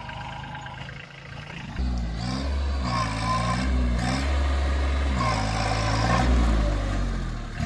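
Kubota A211N compact tractor's diesel engine running while the tractor pulls a cultivator over rough ploughed ground. About two seconds in it becomes much louder, and the engine speed rises and falls repeatedly under the changing load.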